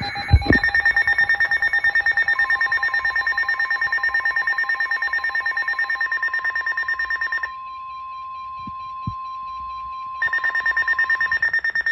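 Weather-radio emergency alert tones: rapid electronic beeping, about eight beeps a second, over a long steady warning tone just above 1 kHz. The beeping stops for about three seconds, leaving the steady tone alone, then comes back near the end. This signals a new warning coming in, the NOAA Weather Radio 1050 Hz alert.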